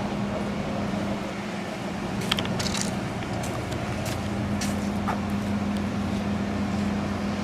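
Golf cart running with a steady low hum, its tone fading a little a couple of seconds in and coming back stronger from about the middle. A few short clicks and rattles sound over it.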